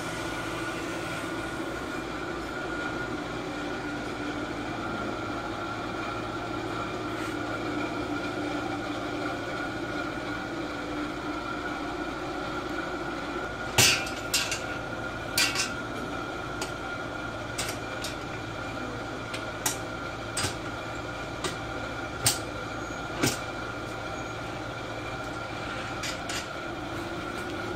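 A steady hum with several held tones throughout. From about halfway, a string of sharp metallic knocks and clunks, roughly one a second, as a padded top is handled and seated onto a white steel bed frame.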